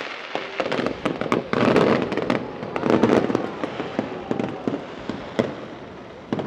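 Fireworks display: aerial shells bursting in a rapid run of bangs and crackles, heaviest about two to three seconds in, then thinning to scattered pops.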